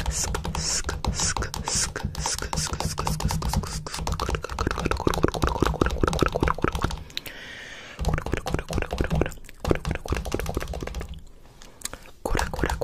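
Fingers rubbing and tapping on a phone right at its microphone: a dense run of scratchy clicks over a low rumble, easing off briefly about seven seconds in.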